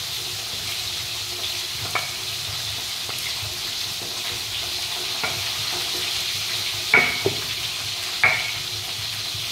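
Chillies being ground to a paste with a stone pestle in a stone mortar (ulekan and cobek): a steady grinding, scraping hiss with a few sharp knocks of stone on stone, the loudest about seven and eight seconds in.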